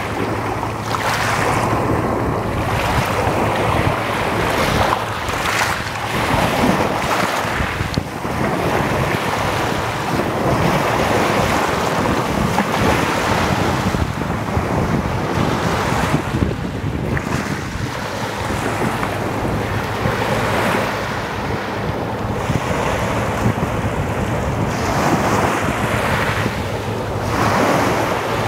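Small waves breaking and washing up a pebble shore, swelling and easing every few seconds, with steady wind noise buffeting the microphone.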